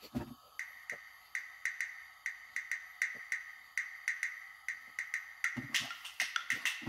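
Light background music with an even clicking, wood-block-like beat over a steady high note, growing fuller about five and a half seconds in.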